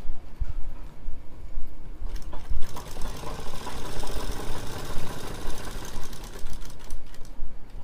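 Sewing machine stitching elastic into a folded fabric waistband. It starts running at speed about two and a half seconds in, after some fabric handling, and stops shortly before the end.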